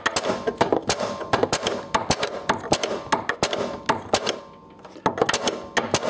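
Small hammer rapidly tapping a replacement steel door hinge pin up into a Ford Mustang door hinge, metal on metal, about four or five taps a second with a brief pause about four seconds in. The pin is being driven in as far as it will go so the groove for its C-clip clears the hinge.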